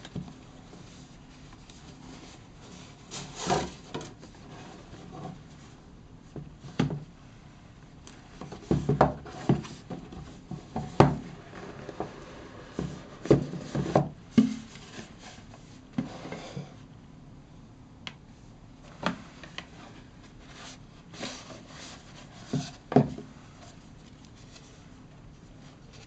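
Cardboard watch packaging being handled: the box sliding and rubbing as it comes out of its sleeve and the lid is opened, with scattered light knocks and taps at irregular intervals.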